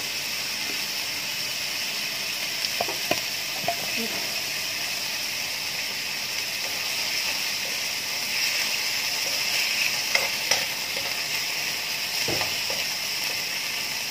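Chicken sautéing in oil in a frying pan: a steady sizzle, with a few light clicks and taps a few seconds in and again near the end.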